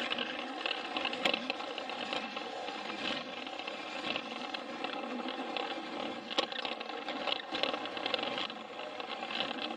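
Plarail battery-powered toy train running along plastic track, its small motor and gearbox whirring steadily, with a few sharp clicks from the wheels and track.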